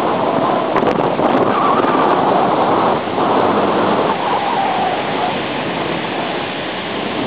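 Steady rush of wind and breaking surf on an exposed seaside cliff, with wind buffeting the microphone; it eases slightly about three seconds in.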